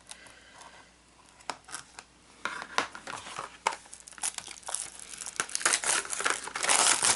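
Cellophane shrink wrap being torn and peeled off a cardboard pencil box, crinkling. A few light clicks at first, then from about two and a half seconds in, continuous crinkling and tearing that grows louder toward the end.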